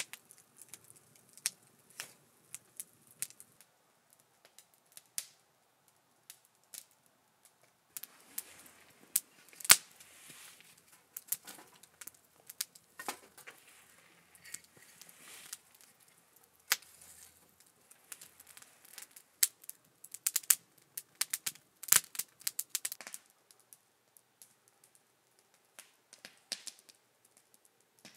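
Split-wood campfire crackling, with sharp, irregular pops and snaps separated by short quiet gaps and coming thick and fast in a couple of busier stretches.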